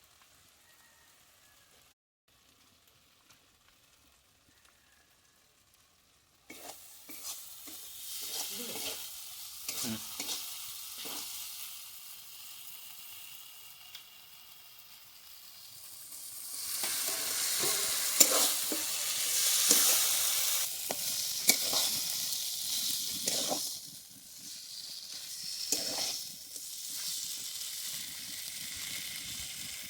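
Food sizzling as it fries in a pan, stirred with a utensil that knocks and scrapes against the pan. It is near silent for about the first six seconds, then the frying starts and grows louder about halfway through.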